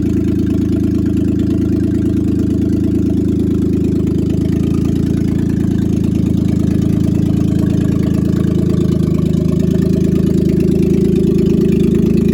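Pontiac G8 engine idling steadily, loud and low-pitched.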